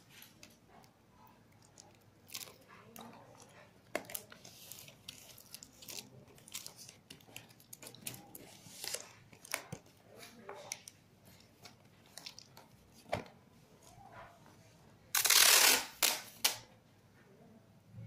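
Shiny plastic foil tape being handled and pressed onto a paper-covered cardboard box: scattered crinkling, rustling and small taps, with a loud ripping sound about fifteen seconds in and two shorter rips just after.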